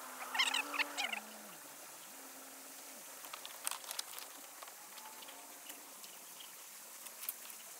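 A quick run of high chirps about half a second in, then scattered clicks of loose pebbles shifting under footsteps and a dog's paws on a stony shore.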